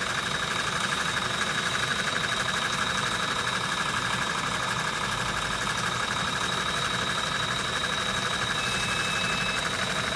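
Electric motor of a home-built foaming and blower machine running steadily, with a constant high whine over a fast buzz. A faint short tone sounds near the end.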